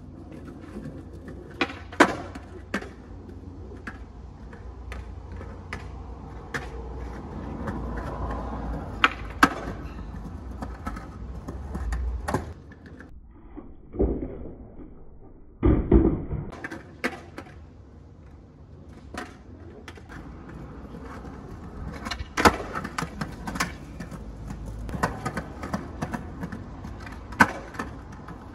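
Skateboard wheels rolling on concrete paving with a steady low rumble. Sharp clacks of the tail popping and the board landing during flat-ground tricks break into it, with a loud landing about sixteen seconds in.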